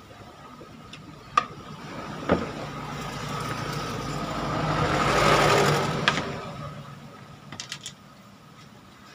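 Two sharp knocks, then a mechanical noise with a low hum that swells over a few seconds and fades away.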